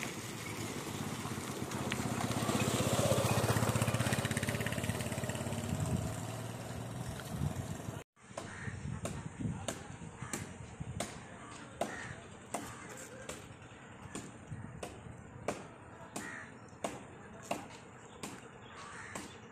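A motorcycle approaches and passes on a dirt road, its engine noise swelling to its loudest about three seconds in and fading away. After a sudden break about eight seconds in comes a run of short, sharp calls or clicks about once every half second to second.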